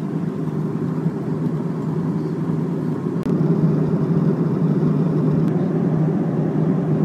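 Jet airliner cabin noise in flight: a steady low rushing drone of engines and airflow. It drops out for an instant about three seconds in and comes back a little louder.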